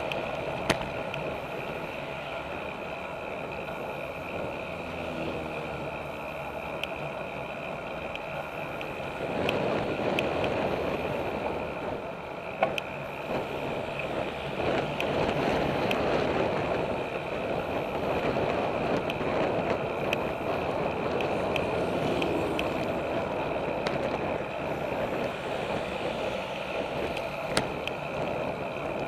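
Steady wind and rolling noise of a road bike in motion, picked up by a handlebar-mounted action camera. The noise grows louder about a third of the way in, and three sharp knocks come from bumps in the path.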